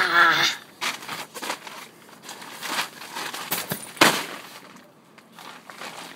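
Tent nylon and groundsheet rustling and crinkling as a person tumbles and scuffs about on the tent floor. It opens with a short vocal sound, and there is a sharp thump about four seconds in.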